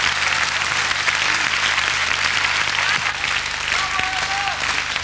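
Large concert audience applauding steadily, easing off slightly after about three seconds.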